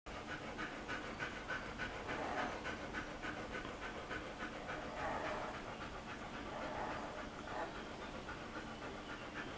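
A mother dog nursing her newborn puppies panting quickly and steadily through an open mouth, about four breaths a second.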